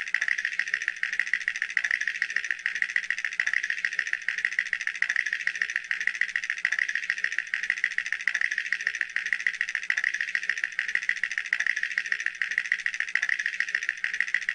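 Cartoon teeth-chattering sound effect: a fast, steady rattle of small clicks, fairly high in pitch.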